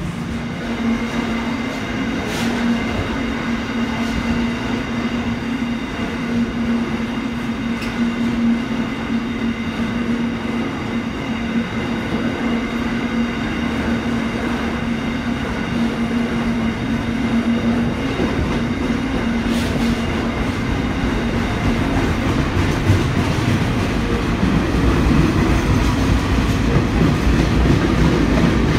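Freight train of louvre vans and container wagons rolling past: a continuous rumble of steel wheels on rail with a steady hum and a few sharp clacks, growing louder and deeper in the last few seconds.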